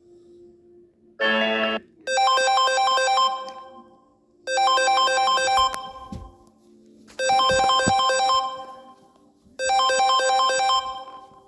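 Electronic phone ringtone playing: a short chord about a second in, then four bursts of rapid repeating notes, each just over a second long and about two and a half seconds apart.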